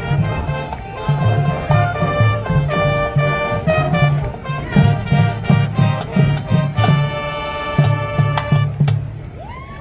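Marching band brass playing a Motown-style tune over a steady drum beat, dropping off just before the end.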